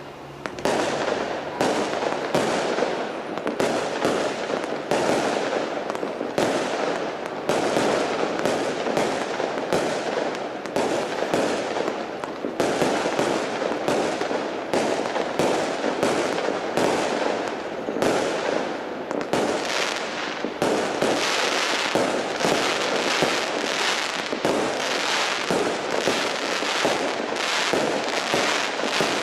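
Professional aerial fireworks display: a dense, unbroken barrage of shells bursting and crackling, about two or more reports a second.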